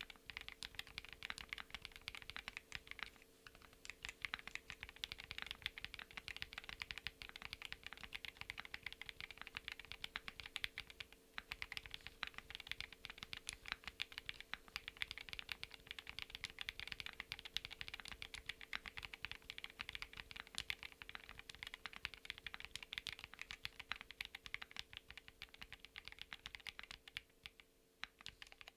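Fast continuous typing on a gasket-mounted 65% mechanical keyboard with SWxHAIMU Deep Ruby linear switches, FR4 plate and PBT keycaps: a dense stream of keystroke clicks and clacks, with brief pauses about 3 s, 11 s and 28 s in. A faint steady hum sits underneath.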